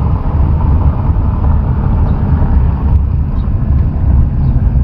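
A car driving, heard from inside the cabin: a steady, loud low rumble of road and engine noise.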